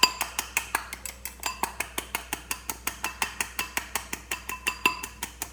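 A fork beating egg whites against the side of a bowl: a rapid, steady clinking, about seven strokes a second, as the salt, seasoning and turmeric are mixed in.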